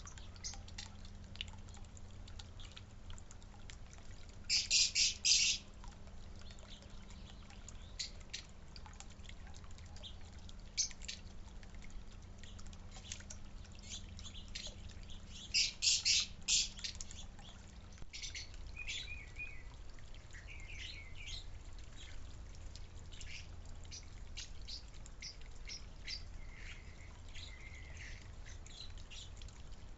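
Backyard birds calling: two loud bursts of rapid, harsh calls of about four notes each, one about five seconds in and another about sixteen seconds in, among scattered short chirps and a few brief warbling notes, over a faint steady low hum.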